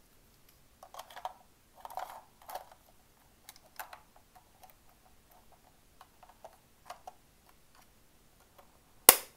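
Small plastic clicks and rattles from handling a radio transmitter's battery bay and plugging the 4xAA battery box's two-wire lead into its connector, with one sharp click near the end, the loudest sound.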